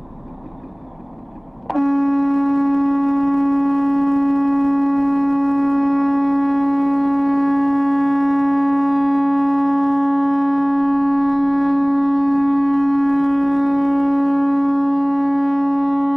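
A truck's horn held down in one long, unbroken single-note blast that starts abruptly about two seconds in, sounded at a pedestrian standing in front of the truck and refusing to move.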